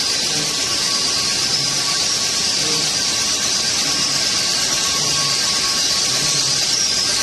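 Sleeve labeling machine and bottle conveyors running steadily, a constant high hiss with a thin steady whine above it.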